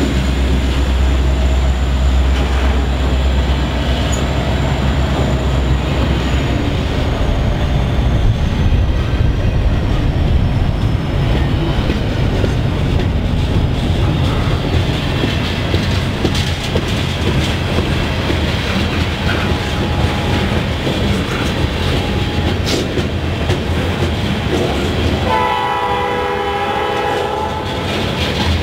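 Freight train passing close by: a GE C40-8M diesel locomotive's engine hum fades in the first couple of seconds, then double-stack intermodal well cars roll past with steady wheel and rail clatter. Near the end a locomotive horn sounds for about three seconds.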